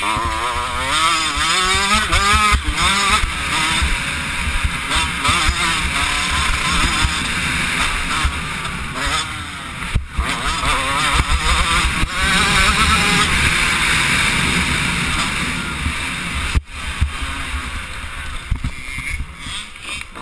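85cc two-stroke motocross bike engine being ridden hard, its pitch rising and falling over and over as the throttle is opened and closed through the gears and corners. Wind buffets the helmet-mounted microphone as a fluttering low rumble beneath it.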